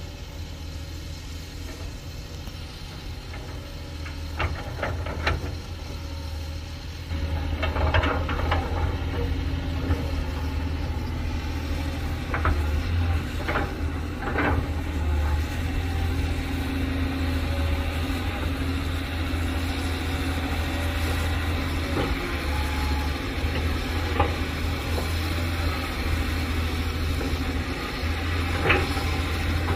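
Hitachi Zaxis 200 excavator's diesel engine running steadily while it digs mud, working harder from about seven seconds in. Several short, sharp clanks from the working excavator are scattered through it.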